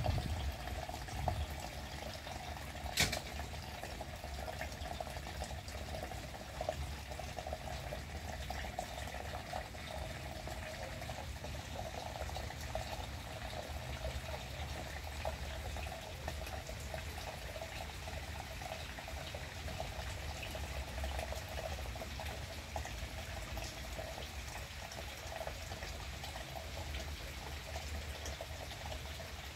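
Steady rain falling on garden plants and leaves, an even hiss of drops, with one sharp click about three seconds in.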